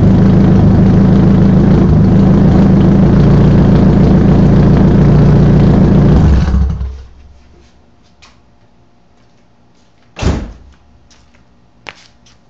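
Straight-piped Nissan SR20DET turbocharged four-cylinder running loud and steady, then shut off about six and a half seconds in. Some four seconds later comes a single loud thump, then a faint click.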